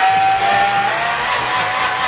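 Personal blender motor switched on and grinding rolled oats into flour: a loud, steady high-pitched whir that starts suddenly and drops slightly in pitch about a second in as the oats load the blades.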